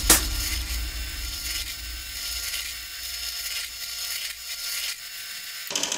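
Drill press bit boring small holes through a wooden board, a steady high-pitched whir and hiss of the spinning bit cutting wood; these are the entry holes for a scroll-saw blade. The sound changes abruptly near the end.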